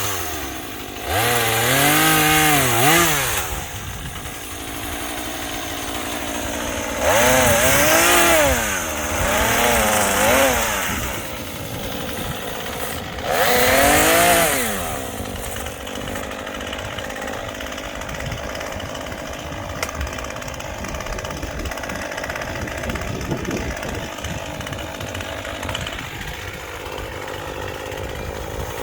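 Small gas chainsaw engine revved up three times, each rev rising and falling in pitch over a couple of seconds, dropping back to a lower steady run between them; for the last half it idles steadily.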